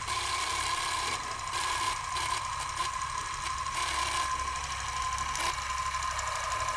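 Film projector running: a steady mechanical rattle with a constant whine through it.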